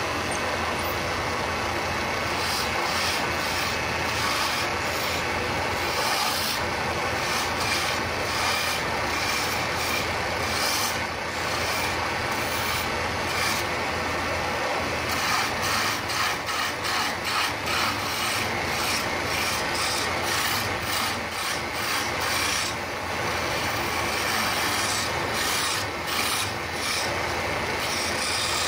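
Wood lathe motor running with a steady hum while a hand-held tool scrapes against the spinning wooden baluster in irregular rasping strokes.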